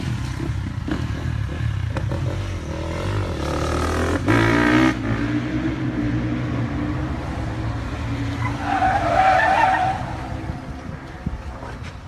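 Car engine revving hard, its pitch rising about three to five seconds in, with a burst of tyre squeal about nine seconds in.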